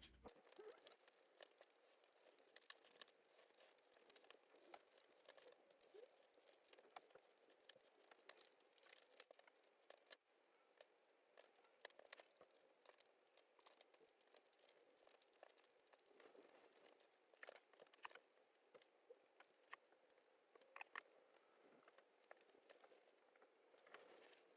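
Faint, scattered small clicks and rustles of card and paper pieces being handled, as windows are fitted to the frames of a card model kit.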